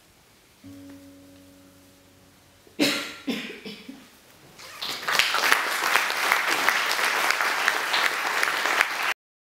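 A final soft chord on a classical guitar rings and fades. A short burst of audience noise follows, then applause builds and continues steadily until it cuts off suddenly near the end.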